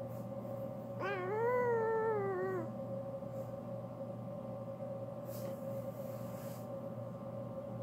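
Seal-point cat giving one long meow about a second in, rising then falling in pitch, over a steady low hum.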